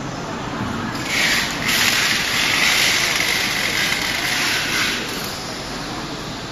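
A mattress roll-packing machine gives off a loud hiss. It starts about a second in, breaks off briefly, then holds for about three seconds before dying away, over steady machine and hall noise.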